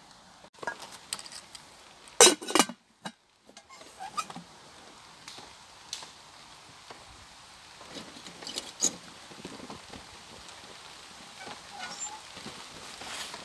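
Scattered light ticks of the first raindrops of a shower pattering, mixed with a few knocks and clanks of cookware being handled around a lit paraffin stove. The loudest is a quick pair of knocks about two seconds in.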